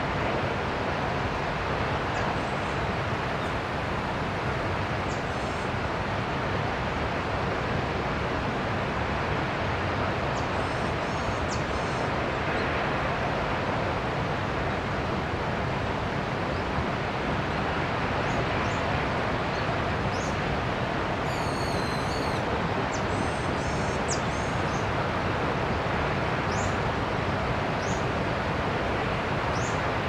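Steady rushing of a distant waterfall, Senpiro Falls, with short bird chirps scattered over it. A louder patterned bird call comes about two-thirds of the way in.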